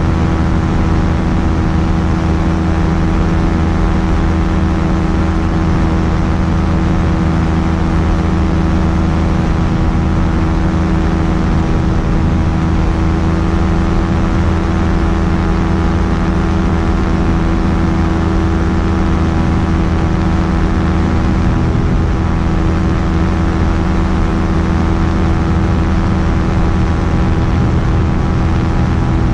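Quicksilver Sport 2S ultralight aircraft's engine running at a steady speed, a constant loud drone that holds one pitch throughout.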